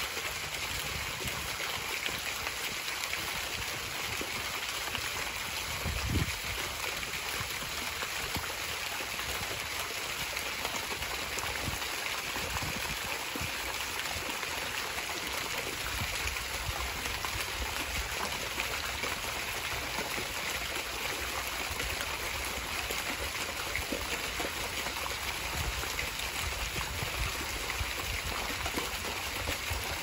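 Two vertical jet fountains spraying water that falls back and splashes into a pool: a steady, even patter of falling water. A brief low bump about six seconds in.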